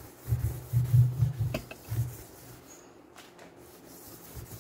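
A stainless steel sink drainboard being scrubbed with baking soda paste: a run of uneven rubbing strokes over the first two seconds, with a sharp click about one and a half seconds in, then quieter.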